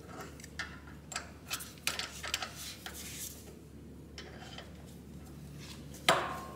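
Irregular small metallic clicks and taps of a wrench working the mower engine's oil drain plug as it is snugged up after draining, with one sharper knock about six seconds in.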